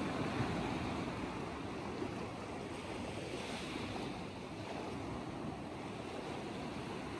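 Small sea waves breaking and washing over a rocky, shallow shore: a steady rushing of surf, a little louder in the first second.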